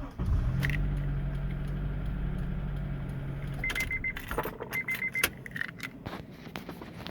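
A 2003 Honda CR-V's four-cylinder engine starting on a newly replaced ignition switch and idling with a steady hum, with no buzzing from the switch, until it stops about three and a half seconds in. Then come two short runs of high beeps and the jingle and clicks of the keys.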